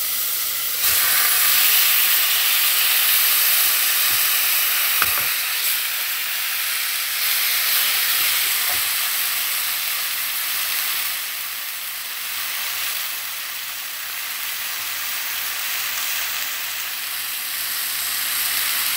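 Salmon pieces frying in hot oil with garlic and tomatoes in a stainless steel pot: a steady sizzle that jumps louder about a second in as the fish goes in, easing off somewhat after about eleven seconds. A single sharp click about five seconds in.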